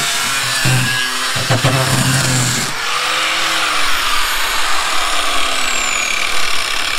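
A Makita 5-inch angle grinder with a sanding disc runs against the bottom edge of painted timber weatherboards: a steady motor whine under the scratchy rasp of the disc, with a couple of brief breaks. About three seconds in it comes off the wood and winds down, its whine falling steadily in pitch.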